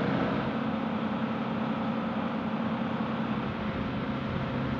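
Steady mechanical drone: a low hum over an even hiss.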